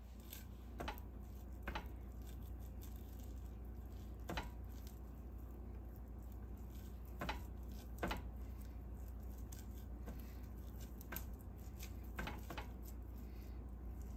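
Soft sticky pats and a handful of short, scattered clicks as hands press chopped thin-sliced beef onto a cream cheese ball in a glass dish, over a steady low hum.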